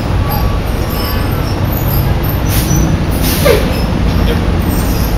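Steady low rumble of city traffic, with two brief hisses about midway.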